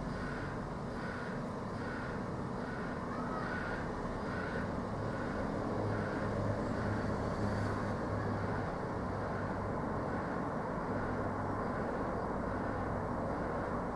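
Steady running noise of a refrigerated home delivery van, with a low hum that comes and goes through the middle. Over the first few seconds a string of short high notes repeats about twice a second.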